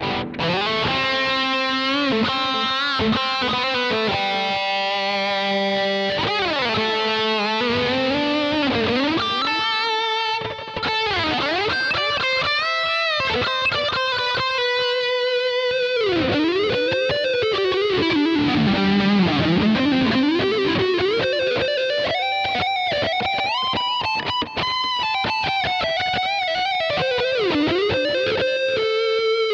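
Electric guitar played through a Boss ME-80 multi-effects unit's hard-rock amp model: a lead line of long sustained notes with string bends and wide vibrato, starting abruptly.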